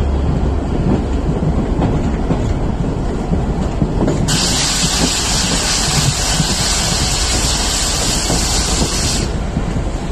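Egyptian railways passenger train running along the track, heard from the carriage window: a steady rumble of wheels on rail with clickety-clack. A loud hiss starts suddenly about four seconds in and cuts off suddenly about five seconds later.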